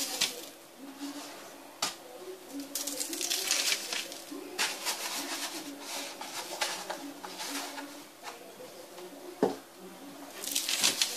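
Dough rolls tumbled in breadcrumbs inside a plastic tub: gritty rustling and scraping in several bursts as the tub is shaken and tilted, with a click about two seconds in and a single knock near the end.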